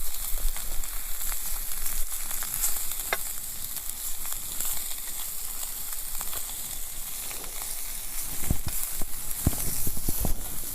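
Sausages sizzling in a small frying pan over a campfire: a steady hiss with scattered sharp pops and crackles, which come more often near the end.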